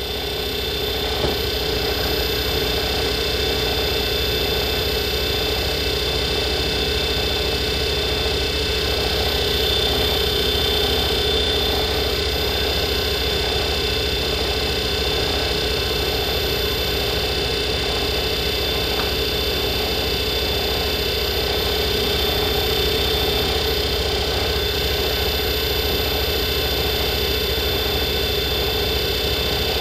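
Small metal lathe running steadily with a constant hum and whine, spinning a nickel silver ferrule while 400-grit abrasive paper on a block is held against it to sand it down for fitting.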